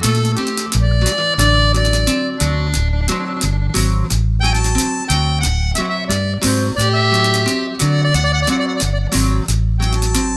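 Background music with a steady beat, deep bass notes and a reedy melody line.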